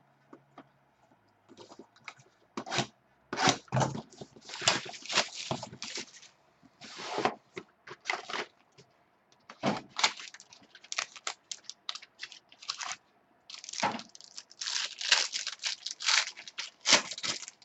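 Crinkling and tearing of trading-card pack wrappers as football card packs are opened and the cards handled, in repeated rustling bursts with short pauses between.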